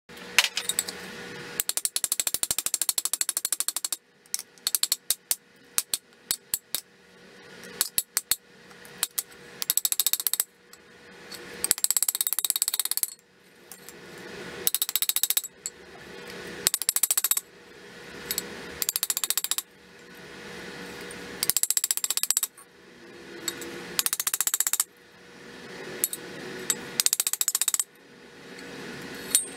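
Hammer striking a rusty steel motorcycle wheel rim half held against an anvil, beating out its dents: rapid runs of metallic taps, many a second, broken by short pauses.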